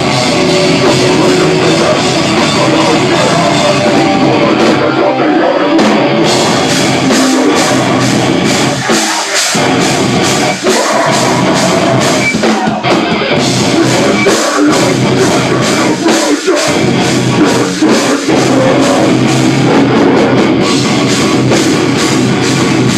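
Heavy metal band playing loudly: drum kit with fast, dense cymbal and drum hits over distorted guitars.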